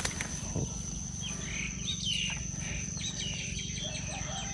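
Outdoor wildlife sound: an insect trilling steadily on one high note, with short chirping calls coming and going over it.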